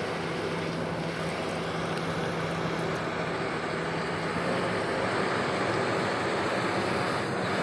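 Steady engine noise of heavy road vehicles running, with a low engine hum that fades out about halfway through.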